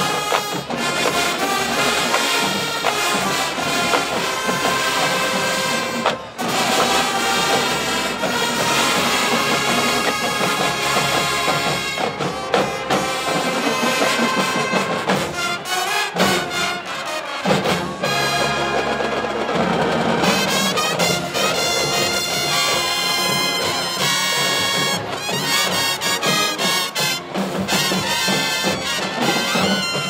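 High school marching band playing, with the brass section carrying sustained notes.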